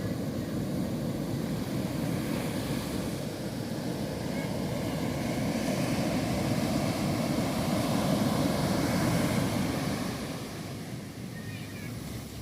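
Ocean surf breaking on a beach: a steady rush of waves that swells to its loudest about two-thirds of the way through, then eases off.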